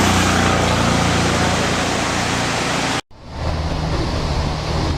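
Steady roar of Ravana Falls, a 25 m waterfall, heard as rushing water. About three seconds in the sound cuts out for an instant, then the rushing resumes with less hiss.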